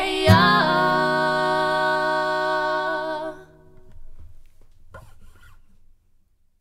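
The last chord of an acoustic song: women's voices hold a final note over a strummed acoustic guitar chord. The note and chord ring out and die away about three and a half seconds in, followed by a few faint rustles.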